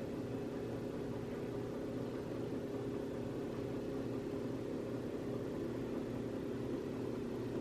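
A steady low hum with a few held tones under an even hiss, no speech.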